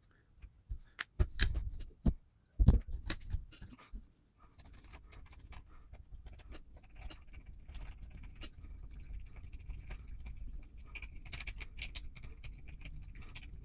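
Paint thinned with isopropyl alcohol being mixed in a small plastic measuring cup: a few sharp clicks and knocks of the stirrer against the cup in the first few seconds, then a steady light scraping as it is stirred.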